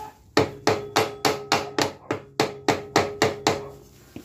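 About a dozen quick hammer blows on metal of a 150cc Lifan ATV engine being dismantled, about four a second, each with a short metallic ring. Typical of tapping a stuck engine part to free it.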